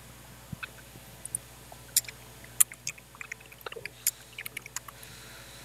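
Typing on a computer keyboard: irregular light key clicks, sparse at first and coming more quickly from about two seconds in.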